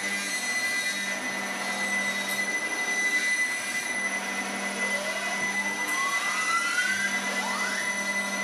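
Electronic sound-art drone played through the installation's coil-and-magnet speakers: a dense, noisy hum holding a steady low tone and a steady high tone. A slow rising glide in pitch begins about five seconds in, followed near the end by a quicker one.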